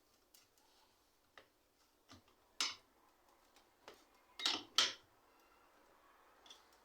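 A series of sharp clicks and knocks from small parts or tools being handled during bicycle repair work, irregularly spaced, the two loudest near the middle about two seconds apart.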